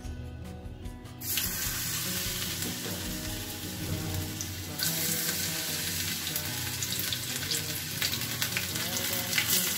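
Batter-coated bitter gourd slices deep-frying in hot oil in a pan. The oil starts sizzling suddenly about a second in as a piece goes in, and grows louder around five seconds in as more slices are added, with steady crackling throughout.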